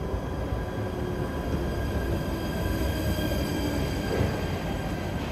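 Stadler FLIRT³ passenger train arriving along a station platform and slowing to stop, its wheels rumbling on the rails with several steady high tones held over the rumble.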